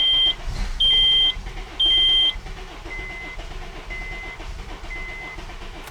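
Honda Accord 2.4-litre four-cylinder cranking over on its starter without catching: a steady, even rhythm. Per the mechanic, the engine is out of time because its timing chain has slipped. A dashboard warning chime beeps about once a second over it, the first three beeps loud and high-pitched, the rest lower and quieter.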